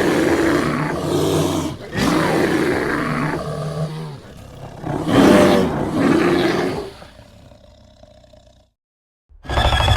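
Growling roars from an animated demon character, in three separate bursts of about two seconds each, the last fading out; another begins near the end.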